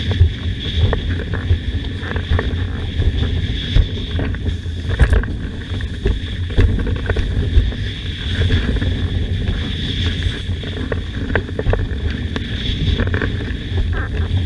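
Heavy wind buffeting the microphone over water rushing past a windsurf board under way, with frequent irregular knocks and slaps from the board on the chop.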